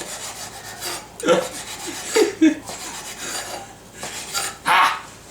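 Knife slicing a sheet of fried egg into flat, noodle-like strips, a few separate cutting strokes one after another.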